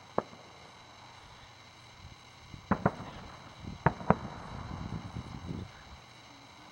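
Aerial firework shells bursting as sharp bangs: one just after the start, a close pair about two and a half seconds in, and another close pair about four seconds in. The last pair is followed by a rumble that trails off over a second or so.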